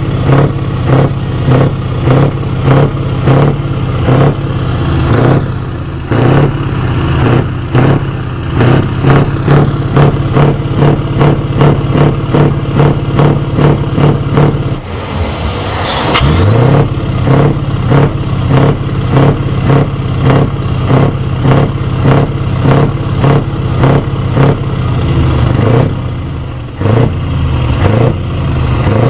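Scania V8 truck engine revved in quick, repeated throttle blips, about two a second, through its side exhaust. About halfway through the revs drop away and then climb in one rising rev before the blipping starts again.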